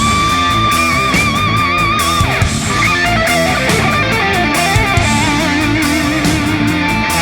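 Background music: rock with electric guitar, with held notes bent with vibrato over a steady beat.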